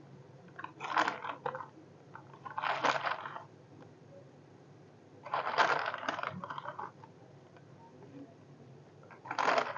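Crunchy snack chips crushed by hand over a plate of noodles: four bursts of crackling and crunching, a couple of seconds apart, the last near the end.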